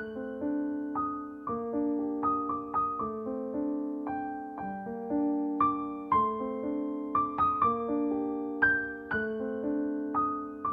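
Instrumental background music: a piano-like keyboard playing a calm melody of single notes, each struck and left ringing over held lower notes, a new note every half second or so.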